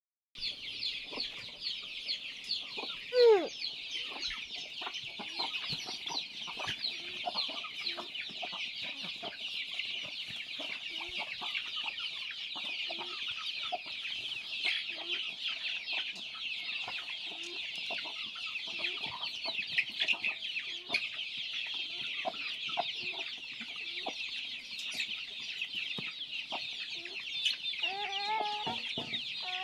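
A flock of free-range desi chickens clucking under a constant dense chorus of high-pitched peeping. One loud call falls in pitch about three seconds in, and a longer call comes near the end.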